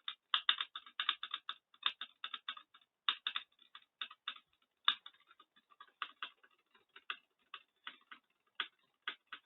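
Rapid, repeated key presses on a computer keyboard during a clicks-per-second test, several clicks a second, tightly packed at first, then slowing and thinning out in the second half as the hands tire.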